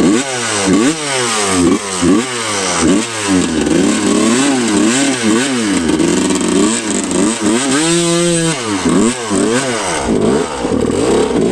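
Two-stroke dirt bike engine revved in short throttle blips, rising and falling about once a second, held steady briefly about eight seconds in, as the bike is worked slowly over rocks.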